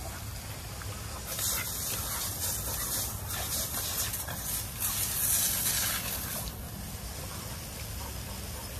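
Water hissing and spraying from a garden hose, loud from about a second in until past the middle, then dropping to a quieter hiss.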